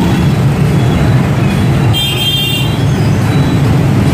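Heavy motorbike traffic running steadily, with a high-pitched horn beeping once, about two seconds in.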